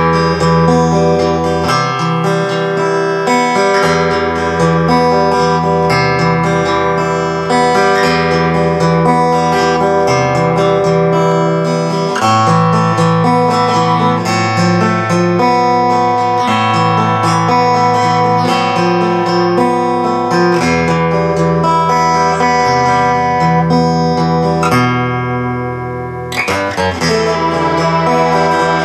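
Guitar music playing through a home-built low-power tube stereo amplifier (a scaled-down Dynaco ST-70 design driving a pair of Hammond 1608 output transformers) and a pair of bookshelf speakers. It plays steadily and softens briefly near the end.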